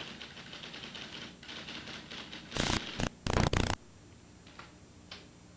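Rapid typing on a typewriter, a quick run of key strikes, then a few loud clattering strokes around three seconds in before it settles to a couple of faint clicks.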